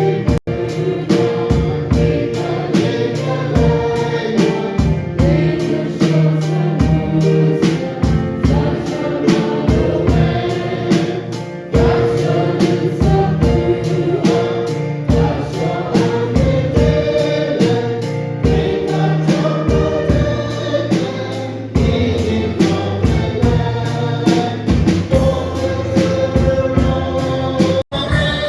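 A choir singing a Christian gospel song over instrumental accompaniment with a steady beat. The sound cuts out for a moment just after the start and again near the end.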